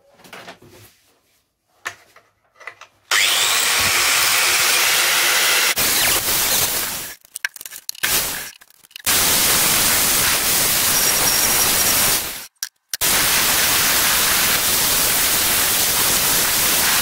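Hand-held angle grinder running and grinding in three long stretches, stopping briefly between them. The first stretch begins with a short rising whine as the disc spins up.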